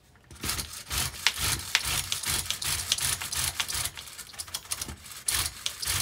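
Hands handling and working on a nitro RC car on a wooden workbench: irregular rubbing, scraping and clicking of parts against the bench, starting about a third of a second in.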